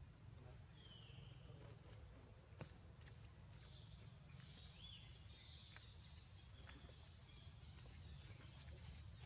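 Faint forest ambience: a steady high-pitched drone of crickets or similar insects over a low background rumble, with a few faint clicks and two short, faint high chirps.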